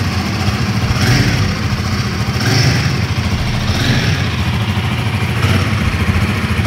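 Royal Enfield Himalayan 452's single-cylinder engine and exhaust running at idle, with the throttle blipped about four times, each rev rising and falling back.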